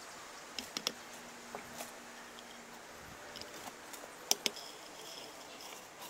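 Light clicks and taps of a small ceramic dish against the rim of a cast-iron teapot's metal infuser as dried herbs are tipped in, the loudest tap about four seconds in with a brief ring.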